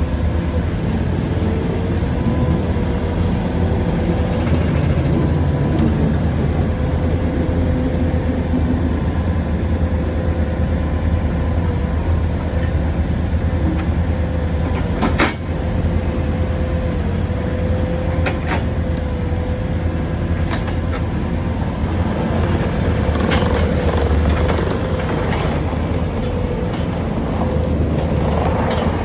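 Bobcat T770 skid steer loader's diesel engine running steadily, with a constant whine on top. A single sharp knock about halfway through.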